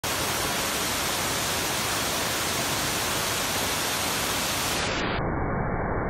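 Waterfall cascading over a broad limestone ledge into a pool: a steady, even rush of falling water.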